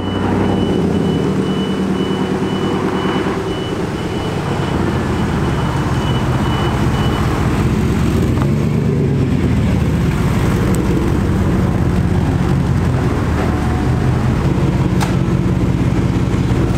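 A 1990s Chevrolet 1500 pickup's engine running at low speed as the truck rolls slowly. A thin steady high tone runs over it for about the first seven seconds, and there is a sharp click near the end.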